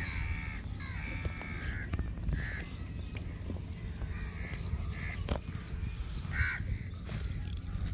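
Crows cawing several times, most of the calls in the first three seconds and two more later, over a steady low rumble.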